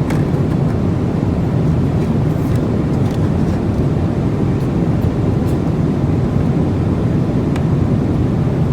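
Steady low roar of airliner cabin noise, with a few faint clicks.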